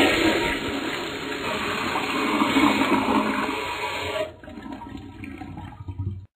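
Toilet flushing: a rush of water that eases off about four seconds in and trails away, stopping suddenly near the end. The flush fails to clear the bowl because the toilet is clogged.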